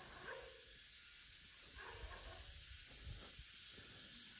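Faint, steady hiss of a fishing reel's drag giving line to a hooked fish.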